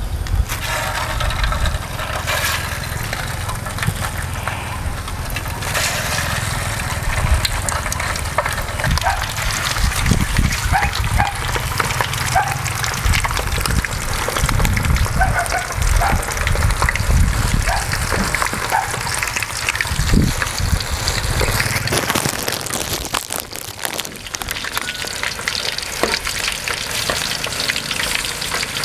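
Meatballs frying in shallow oil in a steel wok, with a steady sizzle and crackle.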